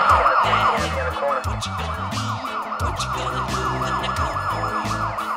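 Police-style siren in a fast yelp, quick rising sweeps repeating several times a second, over music with a deep bass line.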